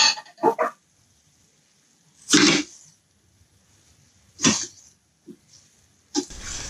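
A metal spatula stirring sliced mushrooms and vegetables in a stainless steel pan, heard as a few short, separate scrapes.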